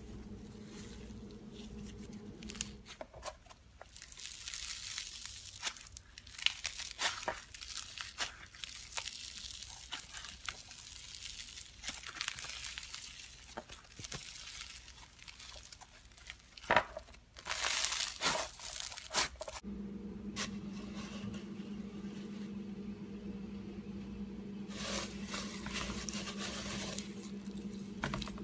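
Hands squeezing and kneading floam, the foam beads crackling and popping in dense bursts of small clicks. A steady low hum runs under the first few seconds and the last third.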